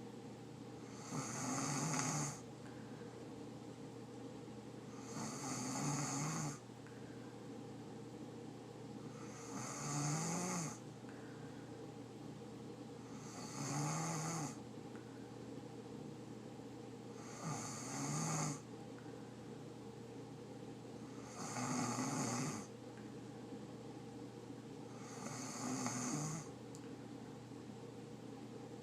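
A sleeping person snoring in a steady rhythm, seven snores about four seconds apart, each lasting a little over a second, over a steady low hum.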